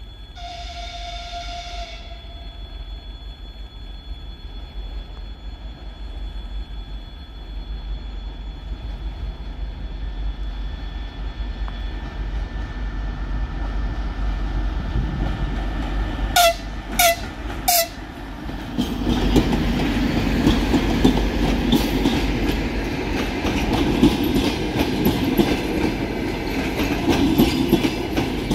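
TEP70BS diesel locomotive with its 16-cylinder diesel engine approaching at the head of a passenger train, its rumble slowly growing. It gives a short horn blast near the start and three short horn blasts a little past halfway. The locomotive and passenger cars then pass close by in a loud, continuous rush, with wheels clattering over the rail joints.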